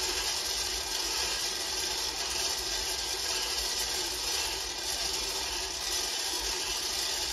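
Barwell stir-arm coffee roaster running, its rotating arm sweeping the beans around the hot pan with a steady rattling hiss over a low motor hum. The beans are late in the roast, about 17 minutes in.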